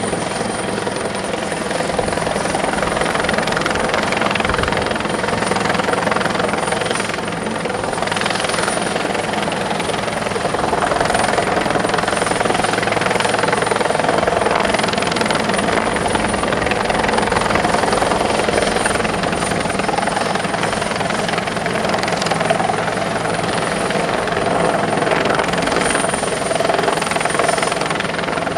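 Fire and disaster-prevention helicopter running steadily during a hoist rescue, a continuous rotor and turbine noise with a thin high whine.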